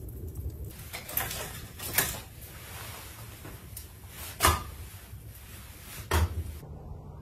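Four separate knocks and clatters of a long-handled tool against the mouth and floor of a wood-fired oven, the loudest about two seconds in and again past the middle.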